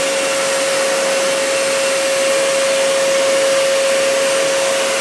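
Vacuum cleaner running steadily as it is used along the top of a window, a constant whine riding over the rush of air.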